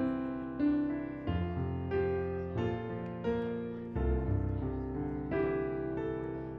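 Piano playing slow music: chords with a melody note struck every second or so over changing bass notes, each fading after it sounds.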